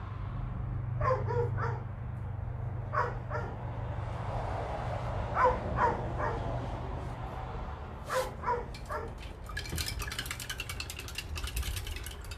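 A dog whining and yipping in short calls, two or three close together every few seconds. Near the end comes a rapid run of clicks lasting about two seconds.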